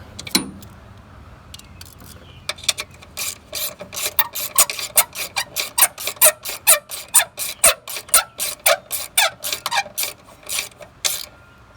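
A 1/4-inch drive ratchet with an 11 mm deep socket, worked back and forth in quick strokes to run down the battery ground-strap bolt. The short clicking strokes start a couple of seconds in and come steadily at about three or four a second.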